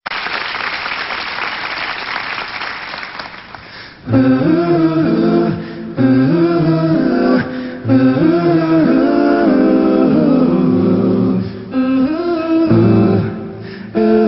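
A rush of crowd noise fades out over the first four seconds. Then a male vocal group sings a cappella in close harmony, with no instruments, in sustained phrases separated by short breaths.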